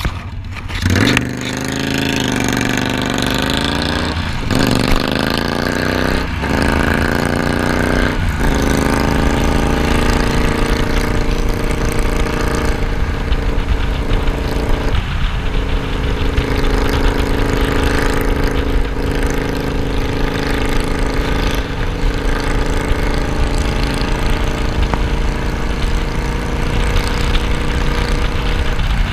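Cruiser motorcycle engine pulling away from a stop, rising in pitch through each gear with an upshift about every two seconds, then running at a steady cruise with one more shift midway. Wind noise on the microphone runs underneath.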